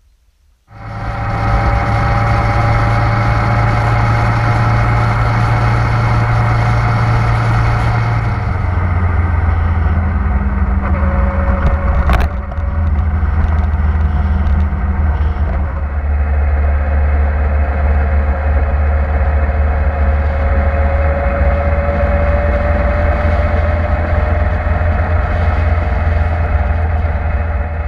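Motorcycle engine running at a steady cruising speed with wind and road noise, heard from a camera mounted on the bike. The engine note shifts about eight seconds in, and there is one sharp click about twelve seconds in.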